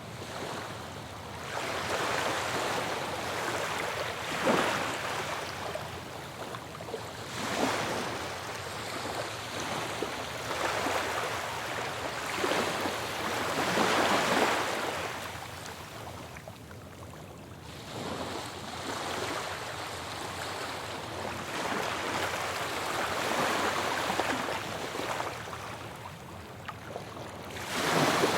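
Ocean surf: waves breaking and washing in as a steady rush that swells and falls back every few seconds. The loudest breaks come about four and seven seconds in, around the middle, and right at the end.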